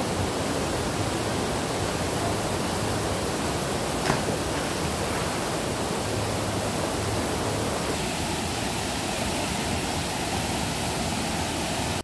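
Steady rushing roar of a waterfall, with one short sharp knock about four seconds in; the rush changes slightly in tone about eight seconds in.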